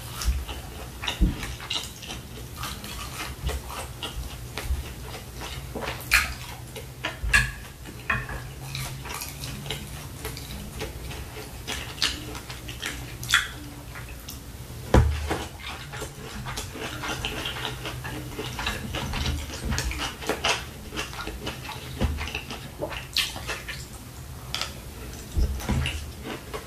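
Close-miked eating: chewing and wet mouth sounds of fried rice, with a spoon scraping and clicking against a plastic plate. Many short irregular clicks throughout, a few louder ones.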